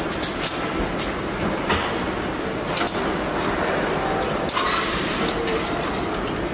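Car assembly line ambience: a steady din of machinery with scattered sharp clicks and knocks from tools and parts, and a short hiss about four and a half seconds in.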